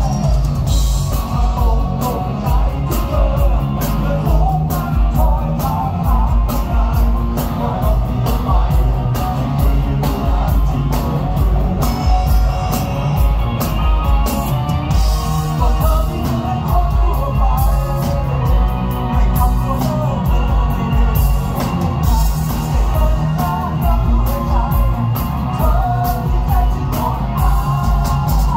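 Live rock band playing loud and steady: electric guitars, bass guitar and drums, with a man singing over them.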